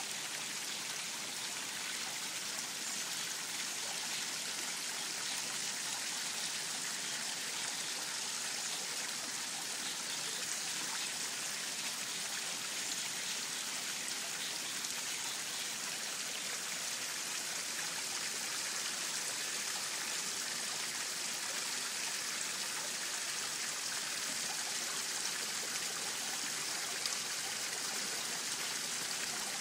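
Water from a small pond waterfall spilling steadily into a koi pond, an even splashing hiss.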